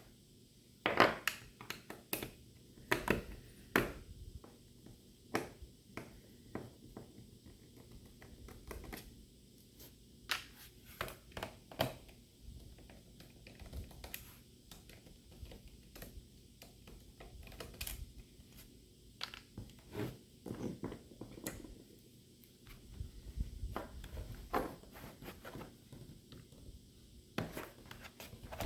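Laptop parts being handled during disassembly and cleaning: irregular clicks, taps and light scrapes of plastic and small parts, with the loudest knocks about a second in and around four seconds in.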